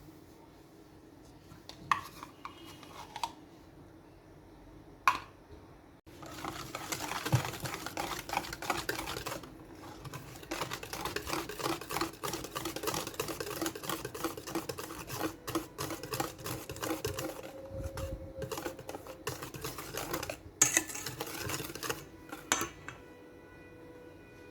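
A utensil stirring and beating a mixture by hand in a bowl: a few separate knocks, then a long run of quick clicking and scraping against the bowl that stops about four seconds before the end, with a couple of sharper knocks just before it stops. A faint steady hum runs underneath.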